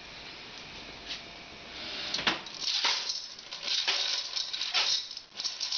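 Periwinkles rattling and clattering against the sides of a stainless steel pot as the pot is shaken on the stove, starting about two seconds in. They are cooking in a little muscadet and water and are shaken, like mussels, rather than boiled under water.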